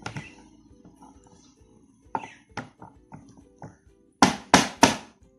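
Small hammer striking raw green olives on a cutting board to crack them: scattered lighter knocks, then four hard blows in quick succession about four seconds in.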